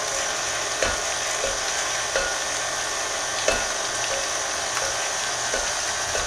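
KitchenAid stand mixer running steadily, its flat beater churning a thick cream cheese and sour cream mixture in a glass bowl, with a few faint clicks now and then.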